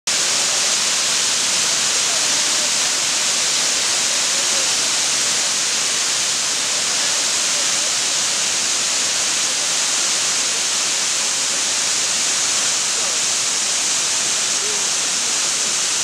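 Twin waterfall pouring over layered rock into a plunge pool: a steady, unbroken rush of falling water, strongest in its high hiss.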